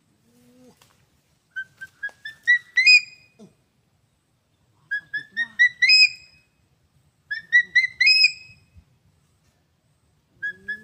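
A bird's loud whistled call: a quick run of short notes climbing in pitch and ending in a longer note, given three times with a fourth starting near the end.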